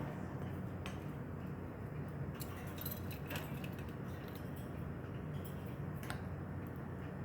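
Pet parakeets in their cage making scattered light metallic clicks and taps, as of beaks and feet on cage bars and toys, over a steady low hum.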